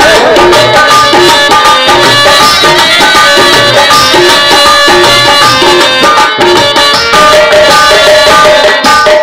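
Instrumental stage music: a steady drum beat under a short melodic phrase that repeats over and over.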